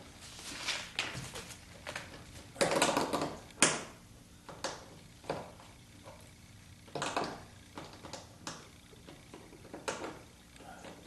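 Scattered handling noises from hands working on car wiring: rustles, light knocks and sharp clicks. The loudest is a longer rustle about two and a half seconds in, followed by a sharp click.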